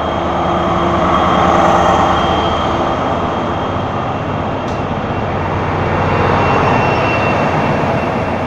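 Two diesel locomotives passing close by with their engines running. The sound swells twice, about two seconds in and again about six and a half seconds in, as each locomotive goes past, with a short sharp click midway.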